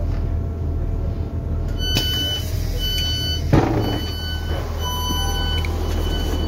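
Train door warning beeps: a high beep repeating about once a second from about two seconds in. About a second and a half later comes a brief rush as the passenger door slides open, all over the steady low hum of the standing diesel train's engine.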